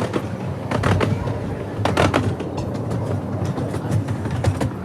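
Ride-on miniature train running along its track: a steady low rumble with a few sharp clacks, the loudest about one and two seconds in.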